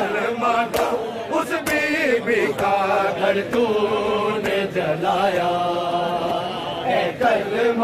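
A group of men chanting a noha refrain in Urdu in unison, with sharp hand slaps of matam (chest-beating) landing in time with the chant.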